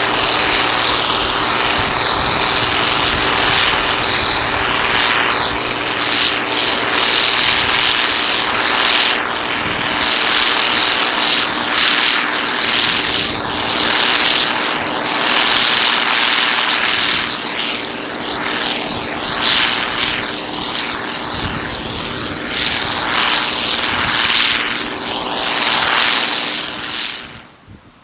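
Massey Ferguson 750 combine harvester working in wheat at full throttle: a steady, loud engine drone mixed with the rush of the threshing machinery. The sound cuts off sharply near the end.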